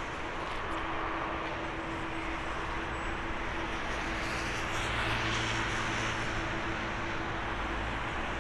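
An Airbus A350-900's Rolls-Royce Trent XWB turbofans running at low taxi thrust as the airliner taxis onto the runway. It is a steady jet hum and rush, with a slight swell about five seconds in.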